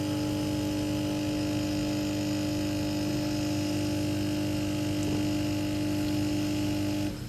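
Philips Senseo coffee machine's pump running with a steady hum as it pushes hot water through the coffee pad, then cutting off suddenly near the end as the brew cycle finishes.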